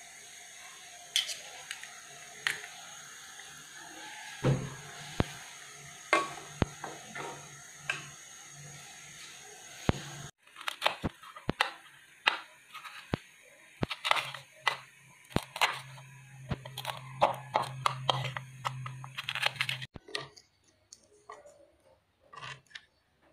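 Kitchen utensil sounds: spoons clinking and tapping against a pot and plastic bowls, in scattered sharp strokes that grow denser after about ten seconds. A steady hiss lies under the first half and stops abruptly at a cut.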